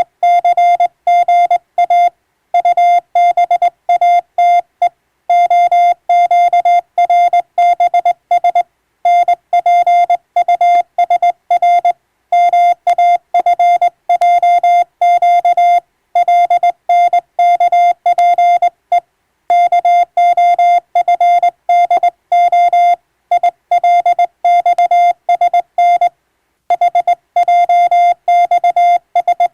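Morse code (CW) as a single steady beep tone, keyed on and off rapidly into dots and dashes, with short pauses between groups.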